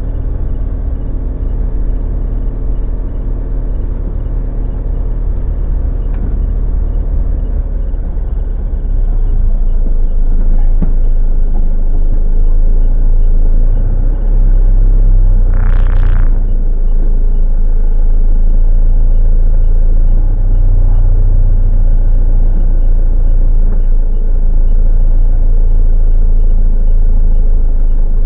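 Camper vehicle driving slowly, with a steady low engine and road rumble that grows louder about nine seconds in; a brief higher-pitched noise cuts through about halfway.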